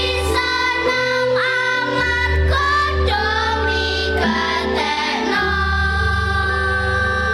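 Children's choir of girls singing a Javanese-language song together, over instrumental accompaniment with a steady low bass.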